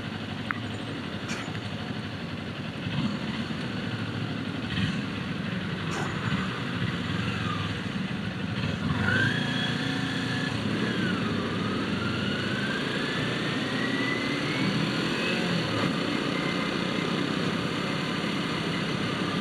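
Motorcycle engine running in slow, congested city traffic among other motorbikes and cars. From about halfway through, an engine note rises steadily for several seconds as it picks up speed.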